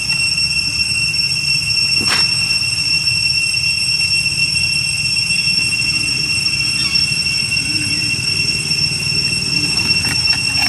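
Steady high-pitched insect drone, like a cicada chorus, holding one unchanging whine with a single sharp click about two seconds in.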